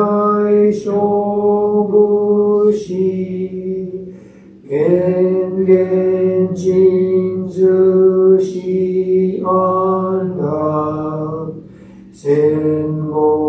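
A Shin Buddhist priest's solo male voice chanting a sutra in Sino-Japanese. Drawn-out syllables are held on a few steady pitches that step down and up, with brief pauses for breath about four seconds in and again near twelve seconds.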